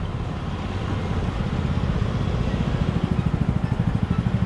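A motor vehicle's engine running close by: a low, fast pulsing that grows louder from about a second in.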